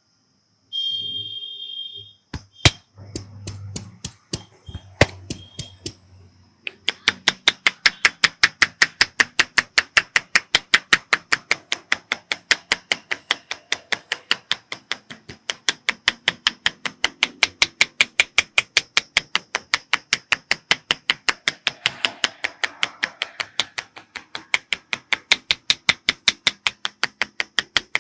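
Barber's hands rapidly tapping and chopping on a head in an Indian head massage. After a few scattered slaps, a steady run of sharp claps about five a second starts some seven seconds in.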